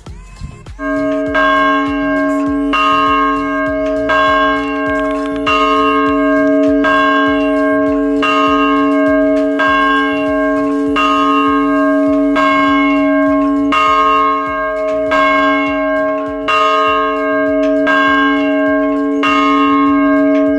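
A bell tolling at a steady pace, one strike about every second and a half, each ringing on into the next. It cuts off suddenly at the end.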